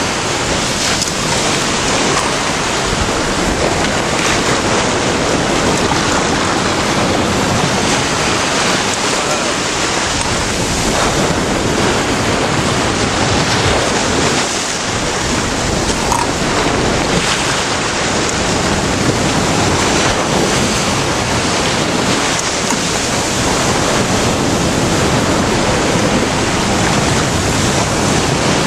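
Sea surf breaking and washing around the legs of a metal frame, with wind buffeting the microphone: a loud, steady rush of noise.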